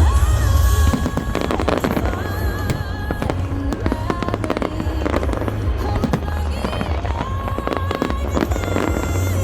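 Fireworks bursting repeatedly with many sharp bangs and crackles, over music from the display's soundtrack.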